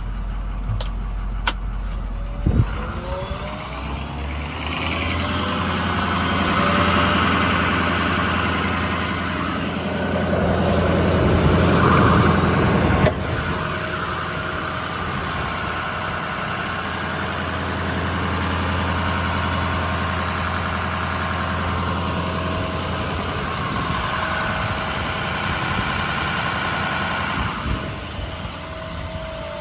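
Ford F550's 6.0 Power Stroke V8 diesel engine running. About two and a half seconds in there is a click and the engine note rises, then it runs steadily, louder in the middle and easing off near the end.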